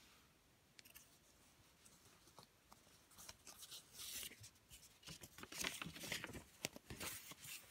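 Near silence at first, then faint rustling and small clicks from about three seconds in: a folded paper leaflet being handled and unfolded.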